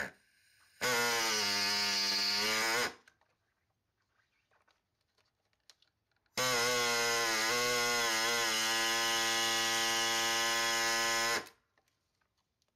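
Pneumatic air saw running in two bursts, about two seconds and then about five seconds, cutting off tabs on the engine's valve covers.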